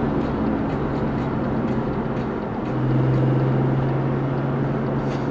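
Lotus Evora's V6 engine with a loud aftermarket PbRacing exhaust, heard from inside the cabin while cruising over road and tyre noise. The engine note holds steady, then grows louder about halfway through as the throttle opens.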